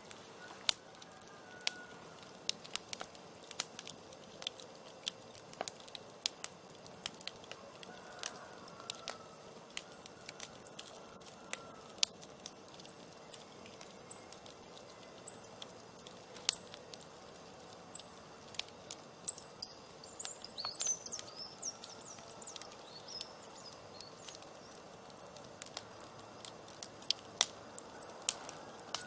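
Open wood fire crackling: irregular sharp pops and snaps several times a second over a low hiss, with a quick flurry of pops about two-thirds of the way through.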